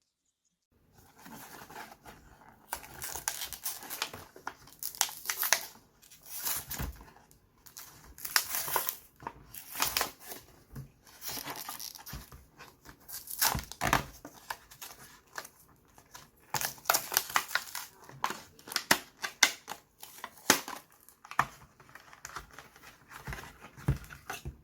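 Close-miked hand handling sounds: irregular bouts of crinkling, crackling and tearing, with sharp clicks, coming in clusters separated by short pauses.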